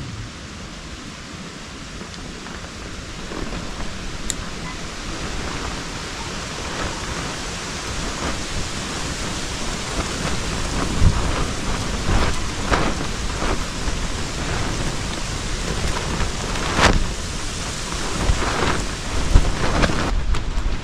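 Rain and wind of a storm, a steady rushing noise that grows louder. In the second half there are several sudden low thumps.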